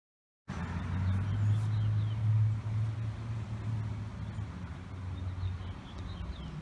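Low, steady engine hum of a motor vehicle, starting abruptly about half a second in and easing slightly after the first two seconds, with a few faint high chirps over it.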